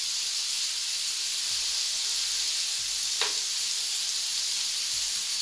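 Food sizzling steadily on the hot grill plate of a SEAAN 2-in-1 electric grill and hot pot, with a single brief click about three seconds in.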